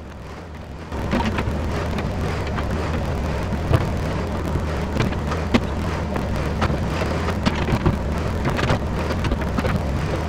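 Yanmar ViO-50 mini excavator's diesel engine running under load, rising about a second in, as the bucket digs and scrapes through rocky soil, with rocks and dirt clattering and rattling against the steel bucket.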